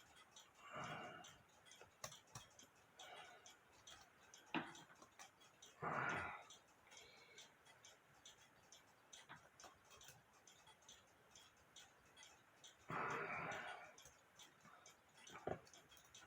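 Faint small clicks and taps of a cuckoo clock movement's metal parts being handled during reassembly, with three short louder sounds about a second, six seconds and thirteen seconds in.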